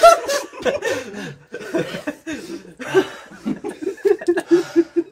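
Young men laughing, with breathy bursts of laughter and a quick, even run of 'ha-ha' pulses near the end.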